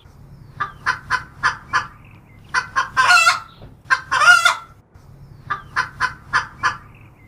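Chicken clucking: a run of five or six quick clucks, then two longer drawn-out calls, and the clucks again.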